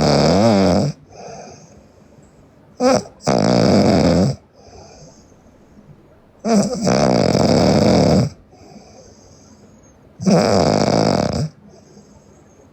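A sleeping girl snoring loudly: a rough snore about every three to three and a half seconds, each lasting a second or so, with fainter breaths between them and a short snort just before the second snore.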